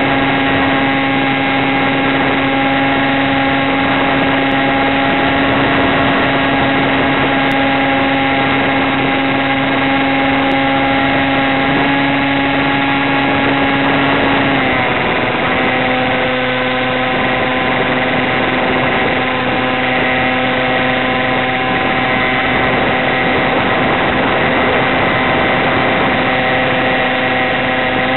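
Electric motor and propeller of an FPV model plane running steadily in flight, picked up by the onboard camera's audio with rushing air noise. Its pitch steps down a little twice about halfway through as the throttle eases.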